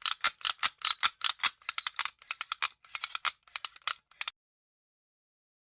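Rapid, even metallic ticking, about five clicks a second, like a ratchet or clockwork, that cuts off suddenly about four seconds in.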